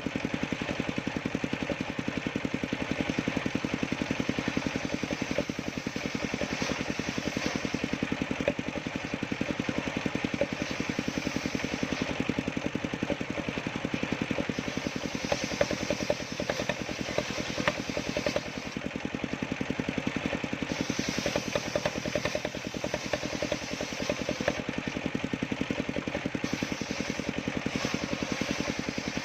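Engine-driven sawmill running steadily, its motor making a fast, even pulsing throughout.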